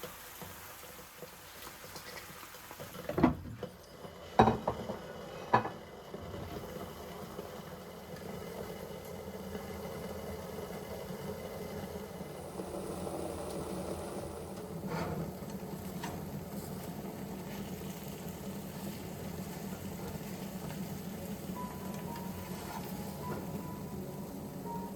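Kitchen cookware sounds: three sharp clatters of utensils or dishes, then a steady hiss of something cooking on the stove.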